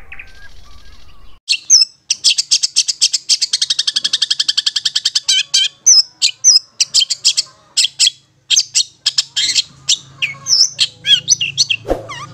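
Long-tailed shrike (cendet) giving its rapid chattering 'ngetet' call, starting about a second and a half in. It opens with a fast, even run of sharp repeated notes, then breaks into shorter bursts of chatter mixed with brief whistled notes.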